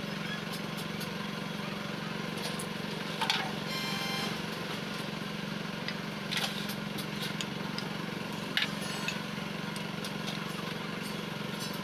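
A steady low drone of a running motor, with a few sharp metal clinks and knocks as the cast steering gear box housing and its steel parts are handled and set down in a metal tray. One clink about four seconds in rings briefly.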